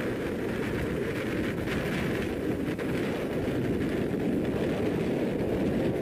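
Strong blizzard wind buffeting the microphone: a steady, low rushing noise.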